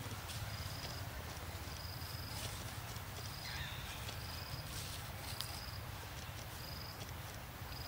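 Forest ambience: a short, high call repeating roughly once a second, with a brief falling call about three and a half seconds in, over a steady low rumble.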